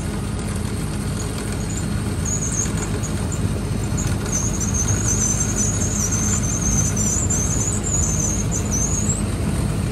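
Poultry-shed manure conveyor belt running and dropping muck off its chute into a trailer: a steady low machine hum, with a high, wavering squeal from about two seconds in until near the end.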